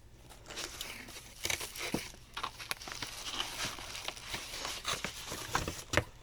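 Packaging being handled while a keyboard is unboxed: irregular crinkling and rustling with scattered small clicks and knocks.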